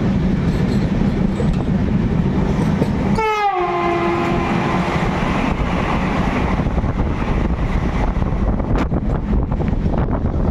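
Indian Railways express train running with a steady rumble and wind noise. About three seconds in, a train horn sounds, its pitch sliding down and then holding for about two seconds. Near the end comes a run of sharp clicks, typical of wheels crossing rail joints.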